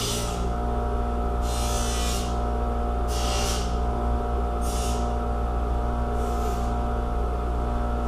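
Background music: a steady held drone with a swelling hiss about every one and a half seconds.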